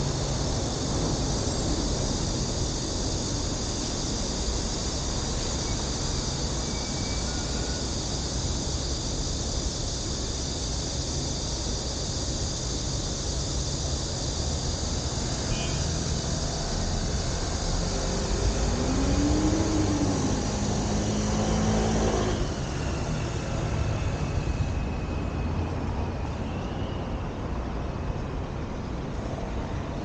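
Steady road-traffic noise from cars and buses on a city street, with a steady high-pitched drone above it that fades about two-thirds of the way through. One vehicle passes loudest around twenty seconds in, its engine pitch rising and falling.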